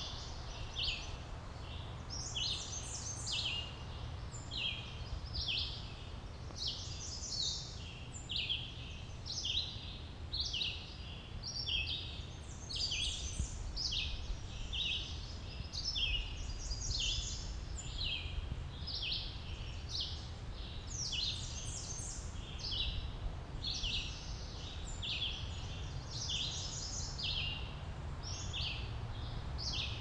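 A chorus of many songbirds chirping and singing without pause: short, quick high notes overlapping one another, over a steady low rumble.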